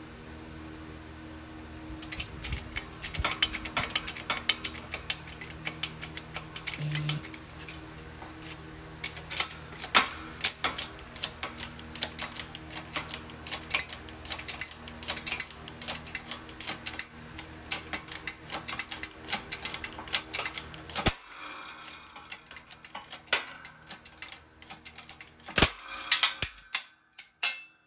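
Shop press forcing a universal-joint bearing cap into an axle yoke: an irregular run of sharp metallic clicks and cracks, several a second, with a few louder cracks, as the cap is driven in and shatters.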